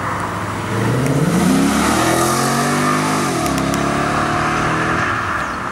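Ford Mustang's V8 accelerating hard as it pulls away: the engine note climbs, drops at a gear change about three seconds in, climbs again, then fades as the car moves off.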